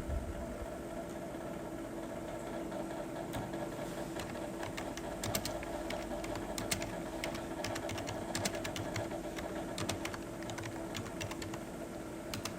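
A steady machine hum runs throughout. From about three seconds in, a run of irregular short clicks and crackles sounds over it.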